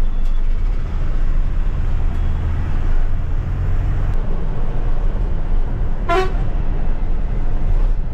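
Ashok Leyland sleeper bus's diesel engine droning steadily with road noise, heard from the driver's cabin, and one short horn toot about six seconds in.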